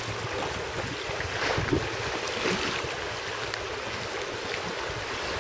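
Sea water washing and lapping against the stone steps of a harbour breakwater: a steady rush of water.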